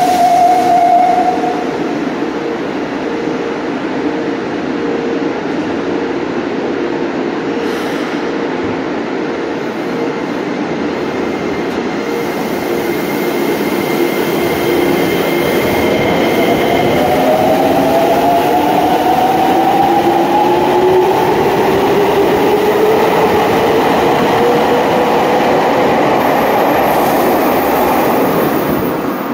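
Tsurumai Line subway train pulling away: steady rumbling running noise, then from about halfway in the traction motors' whine rising slowly in pitch as it gathers speed.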